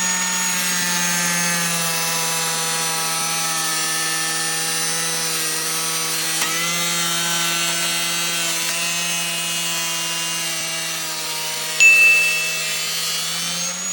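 Angle grinder running at full speed with a steady whine. About 12 seconds in there is a short, loud high screech, and the motor starts to wind down at the very end.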